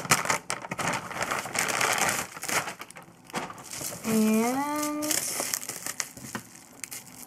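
Silver foil mailer bag and bubble wrap crinkling and rustling as a box is pulled out of the bag and handled, in irregular crackly bursts.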